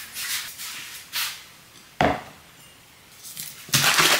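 Kitchen handling noises, with a sharp knock about two seconds in. Near the end, a bottle of liquid coffee creamer is shaken hard, giving a loud, continuous sloshing rattle.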